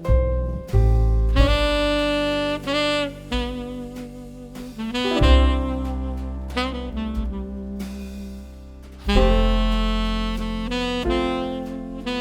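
Background jazz music with a saxophone playing held melody notes over a bass line.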